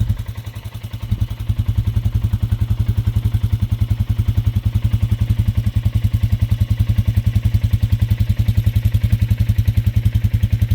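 ATV engine running with an even, steady throb; it eases off briefly about a second in, then picks back up and holds.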